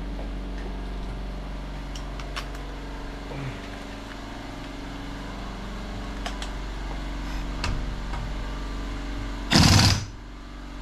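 Steady mechanical hum with a few light clicks, then near the end a loud burst of about half a second from an impact wrench.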